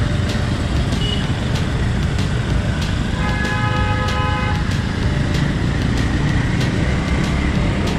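Riding a scooter through city traffic: a steady low rumble of engine, road and wind on the microphone. A vehicle horn sounds once, for about a second and a half, a little before the middle.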